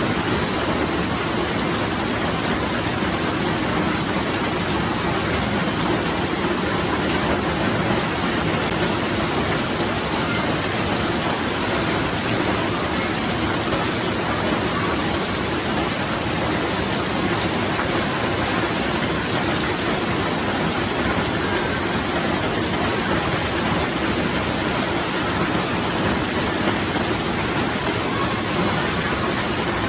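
Rain falling steadily, an even hiss that holds without a break.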